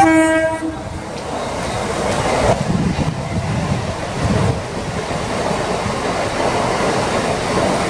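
Mumbai suburban EMU local train giving a short horn blast as it approaches, then running fast past the platform with a steady rush of wheels and air as the coaches go by.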